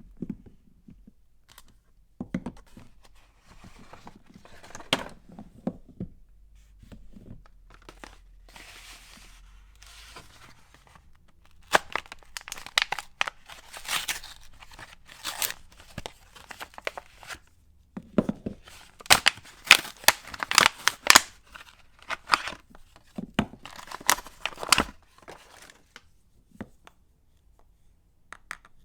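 Wrapping on a bar of soap being torn open and crinkled by hand. Quiet handling at first, then two long bouts of sharp tearing and crackling near the middle.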